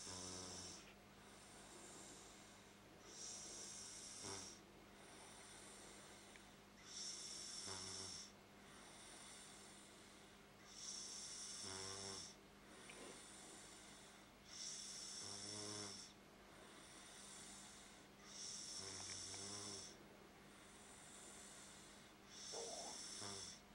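Quiet, regular snoring: a slow breath about every four seconds, each a hissing intake ending in a short rattling buzz.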